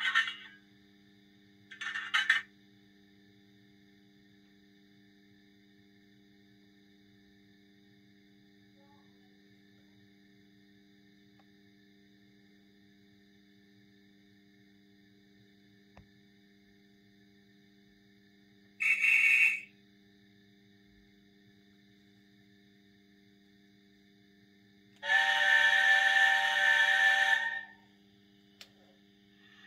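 Locomansounds SD10 DCC sound decoder in a Minitrix N-scale LNER A4 Pacific model sounding its steam whistle through the model's small speaker: a short toot, then about six seconds later a longer chime whistle of several tones together lasting about two and a half seconds, over a faint steady hum. Two short bursts sound near the start.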